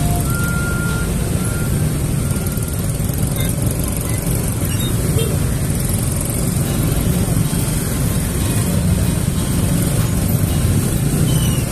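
Motor scooter engines in slow, crowded stop-and-go traffic: a steady low engine rumble, with a few short, faint beeps in the first couple of seconds.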